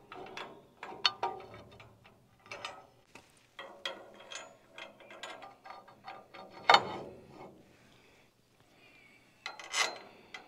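Steel tool-rack parts being handled and fitted together by hand: irregular metal clicks, clanks and rattles, with the loudest knock about two-thirds of the way through and another near the end.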